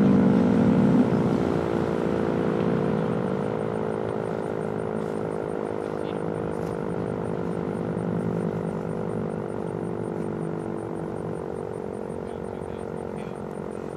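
Sentry 10V outdoor warning siren sounding its attack signal, a steady multi-tone whine that slowly fades. A louder low rumble dies away about a second in.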